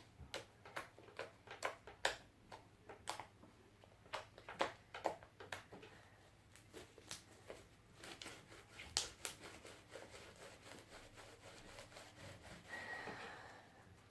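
Homemade fluffy slime (shaving foam, clear glue and borax glycerin) being squeezed and stretched by hand, giving irregular little clicks and pops of trapped air a few times a second, with a longer squelch near the end.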